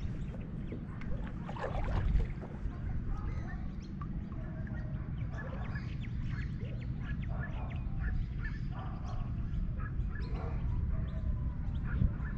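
Wind rumbling steadily on the microphone, with birds calling now and then in the background, short calls coming irregularly from about three seconds in.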